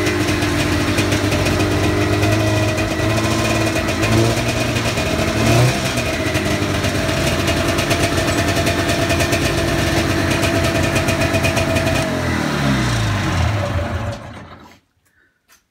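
1996 Polaris Indy Lite 340 snowmobile's two-stroke engine running steadily after a cold start, rising briefly in pitch twice about four and five and a half seconds in. About twelve seconds in it slows, its pitch falling, and stops.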